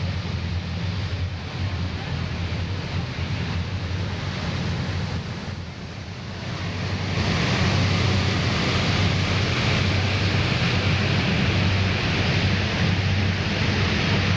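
Passenger ferry's engine running with a steady low hum, under wind on the microphone and rushing water; the wind and water hiss grows louder about seven seconds in.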